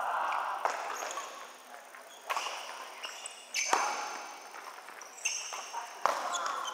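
Badminton rackets striking the shuttlecock in a rally, sharp hits every second or two that ring out in a large hall, with short high squeaks of shoes on the court in between.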